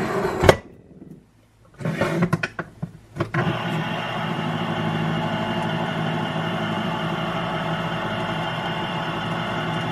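A sharp click, then some clatter about two seconds in. An electric can opener's motor starts about three seconds in and runs at a steady hum as it cuts around a can.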